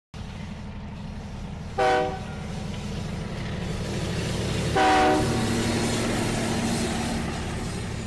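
Sound decoder in an N scale Kato SDP40F model locomotive playing a diesel engine running sound, with two short multi-tone horn blasts about three seconds apart. The engine sound grows louder after the second blast.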